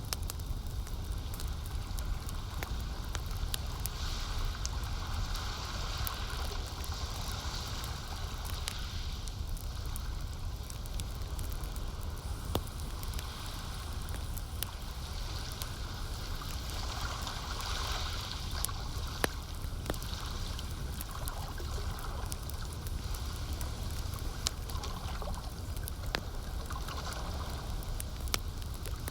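Campfire crackling with scattered sharp pops, over lake water lapping and gurgling that swells and eases every few seconds, with a steady low rumble underneath.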